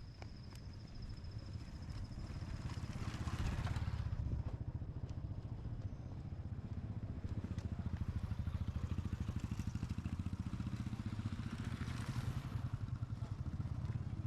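Motor vehicle engine running while travelling slowly on a rough road, its low pulsing note growing louder twice, a few seconds in and again past the middle, each time with a rush of noise.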